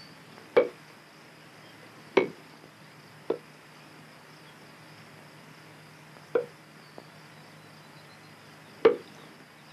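Badminton racquets hitting a shuttlecock: five sharp, irregularly spaced thwacks of a rally, with a fainter tap between the last two, over a faint steady hum of an old film soundtrack.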